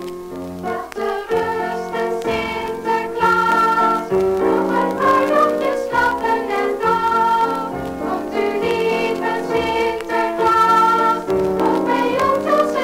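A choir singing a Sinterklaas song with instrumental accompaniment, played from an old 45 rpm gramophone record.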